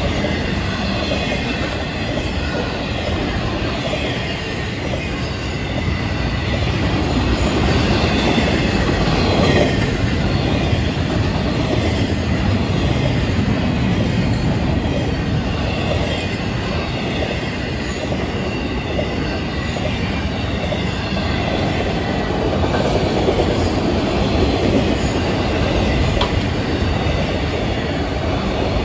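Freight cars of a Florida East Coast Railway train rolling past: a steady rumble and clatter of steel wheels on rail, with a thin high wheel squeal now and then.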